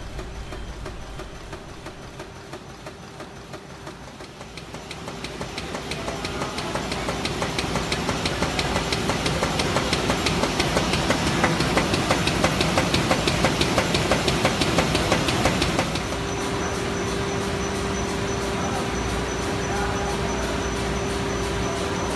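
Bicycle component test machine running: a rapid rhythmic clacking that fades in and grows louder over the first several seconds. About two-thirds of the way through it changes abruptly to a steady hum with a faster, even patter.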